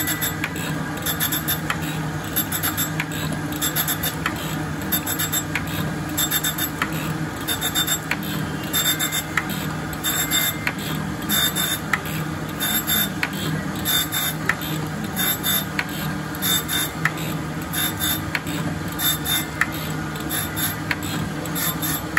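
Jones & Shipman Model 1400 surface grinder running with flood coolant: a steady low spindle hum under a gritty, splashy hiss that comes and goes many times as the table carries the steel discs back and forth under the grinding wheel on a light cleanup cut.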